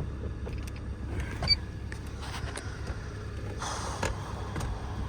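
2014 Hyundai Sonata's 2.4-litre four-cylinder engine idling steadily with no misfires, freshly fitted with a new timing chain. A few light clicks, and a short rustle about three and a half seconds in.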